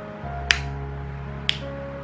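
Background music of held notes over a bass line, with two sharp snap-like clicks about a second apart.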